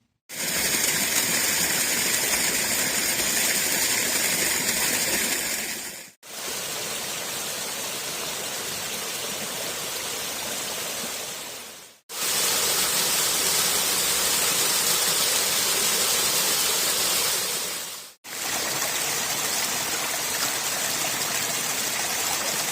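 Rushing water in four separate clips of about six seconds each, steady and hissing, with a short drop to silence between each clip.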